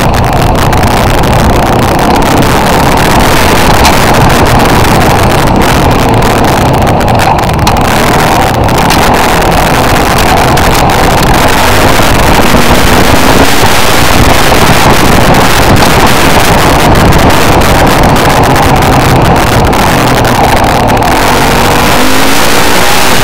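An off-road vehicle's engine running as it travels a dirt trail, heard through a mounted camera's microphone with heavy wind rush over it. The sound is loud and steady, with small shifts in engine pitch.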